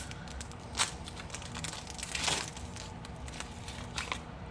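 Crinkling and tearing of a trading card pack wrapper being handled and opened, with a sharp click about a second in and a louder rustle a little after two seconds.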